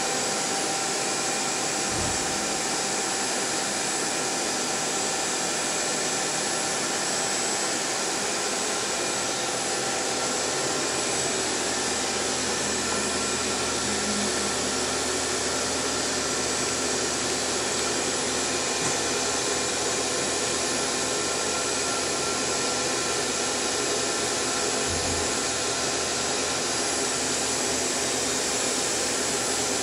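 Hurco VM II vertical machining centre running its warm-up cycle: a steady mechanical whir with several constant tones in it, unchanging throughout.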